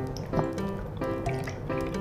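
Background music, with milk pouring from a small carton into a glass underneath it.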